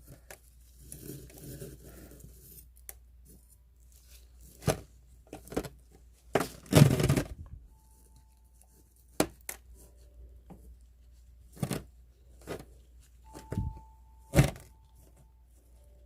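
Scattered rustles, crunches and clicks of hands and tweezers working gritty potting soil and succulent rosettes into a pot. The longest, loudest scrape comes about seven seconds in.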